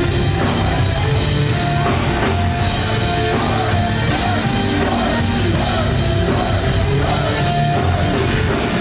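Rock band playing an instrumental passage: electric guitars, bass and a drum kit, with a melody line of held notes over the steady beat.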